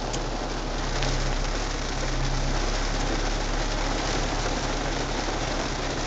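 Rain falling on a car's roof and windscreen, heard from inside the cabin as a steady hiss with a low hum beneath it.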